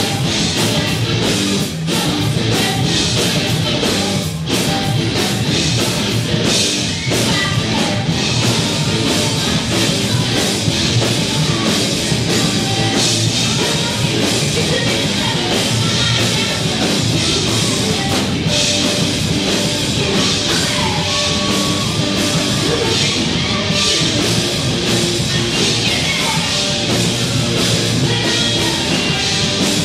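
Live rock band performing: electric guitar and drum kit, with a woman singing.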